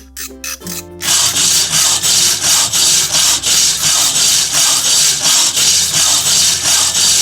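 Loud rhythmic rasping or scraping noise, about four strokes a second, starting about a second in, over background music.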